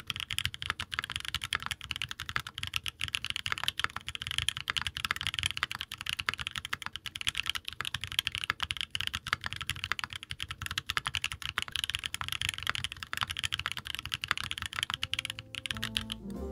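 Rapid, continuous typing on a 65% mechanical keyboard fitted with lubed HUANO White Blue SE tactile switches on an aluminium plate, with GMK keycaps: a dense stream of keystrokes. Piano music comes in right at the end as the typing stops.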